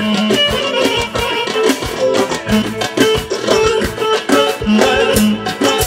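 Live band music: a clarinet playing a quick melody over a steady beat, with a plucked guitar-like accompaniment.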